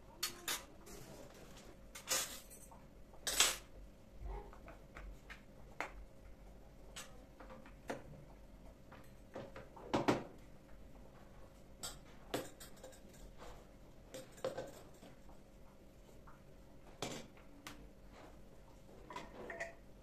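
Scattered light knocks and clinks of household objects being handled, with louder knocks a few seconds in and about halfway, over a faint steady hum.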